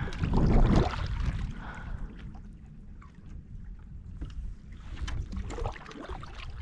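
Wind rumbling on the microphone from a canoe on open water, with small splashes and knocks of water and paddle; a louder gust-like whoosh comes in the first second.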